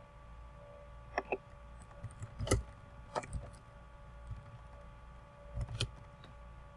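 A few scattered computer keyboard keystrokes, single sharp clicks spaced a second or so apart, over a faint steady hum.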